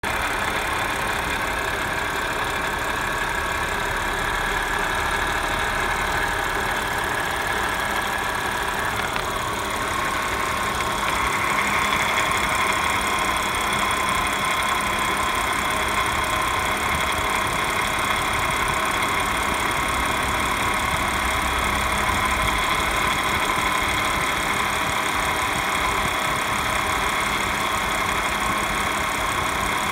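2015 Audi S5's supercharged 3.0-litre V6 idling steadily, with a high whine that drops in pitch about a third of the way through. It is the whining and rattling noise the owner takes for a sign that something is wrong with the car.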